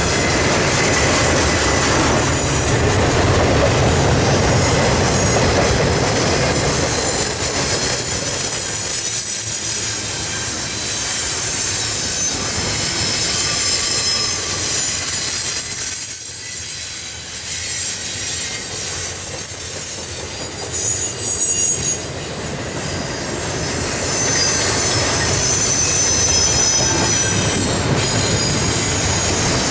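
Double-stack intermodal freight train rolling past: a steady rumble of steel wheels on rail, with high-pitched wheel squeals that come and go.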